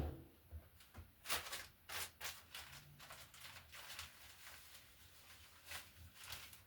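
A series of irregular short knocks and scuffs, about a dozen spread unevenly, over a faint low hum.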